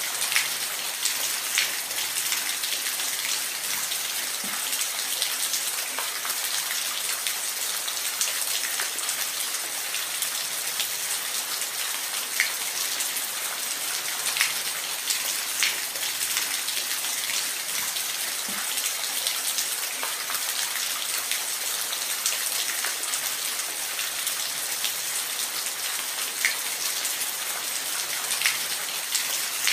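Steady rain, an even hiss with scattered sharp drop ticks on a surface.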